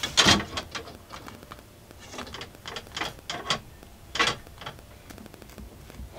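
Irregular light clicks and crackles as a hot wood-burning tool is pressed through a foam seat cushion covered in stealth strips, melting holes in it. The louder clicks come just after the start and about four seconds in.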